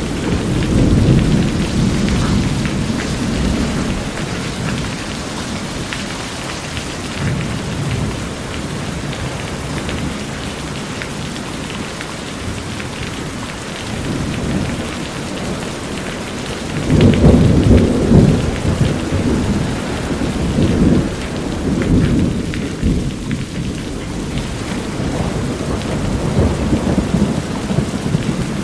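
Steady rain drumming on a corrugated metal roof, with rolling thunder underneath. A low rumble swells near the start, and a louder, longer roll of thunder comes a little past halfway.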